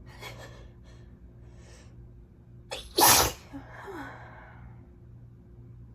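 A single loud, sudden sneeze about three seconds in. It is led up to by a few breathy in-breaths and a short catch of breath, and followed by a breathy exhale.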